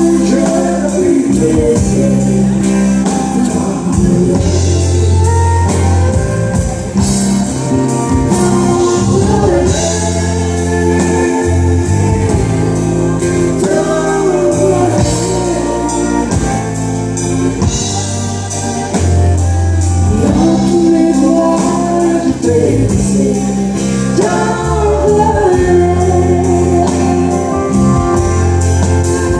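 Live country song: a woman and a man singing a duet over strummed acoustic guitar and a backing band with drums.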